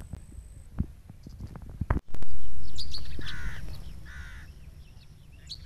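Two harsh crow caws, about a second apart, over a low outdoor rumble. Just before them a loud low rumble starts suddenly and fades away.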